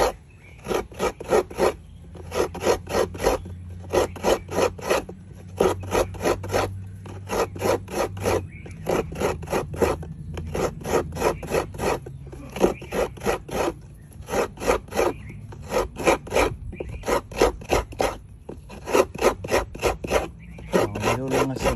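A coconut half is scraped by hand against the blade of a wooden coconut-grating stool. Rasping strokes come about three a second, in runs broken by short pauses.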